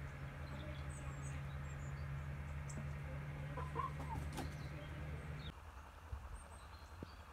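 Domestic hens clucking in a yard, a few short calls around the middle, with a small bird chirping briefly. Under it runs a steady low hum that drops away about five and a half seconds in.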